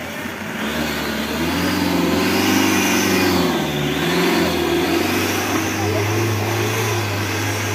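Modified off-road 4x4's engine revving hard under load as it climbs a steep muddy slope. The revs rise, dip about four seconds in, then climb again.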